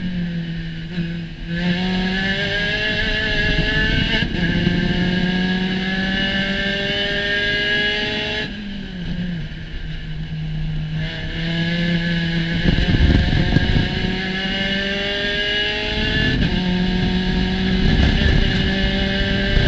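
Spec Racer Ford Gen3's four-cylinder engine under full-throttle acceleration, its note climbing steadily for about seven seconds. It drops away about eight seconds in and climbs again from about eleven seconds, with a few low rumbling bursts.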